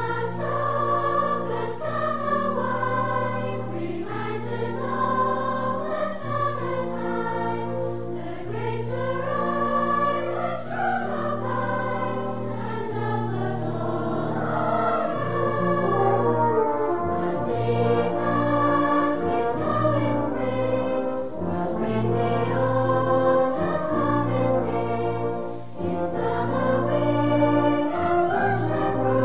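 Outro music: choral singing with brass and orchestral accompaniment, in long held notes.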